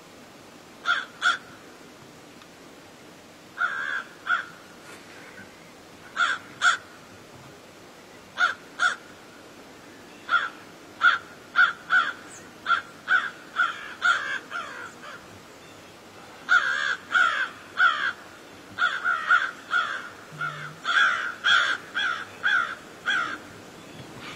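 Crows cawing repeatedly, in pairs and short runs of harsh calls, sparse at first and coming thick and fast in the second half.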